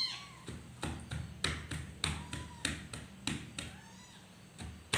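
Chest-physiotherapy percussion: a hand patting a patient's back in a steady series of soft pats, about two to three a second, to loosen phlegm. The pats pause briefly near the end.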